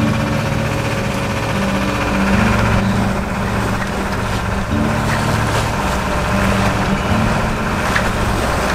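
Sailboat's engine running steadily while under way, a continuous hum that wavers slightly in pitch.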